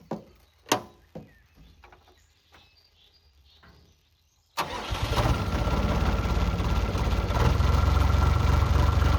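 A few light clicks and knocks, then about halfway through a mini excavator's diesel engine starts abruptly and settles into a steady idle, warming up.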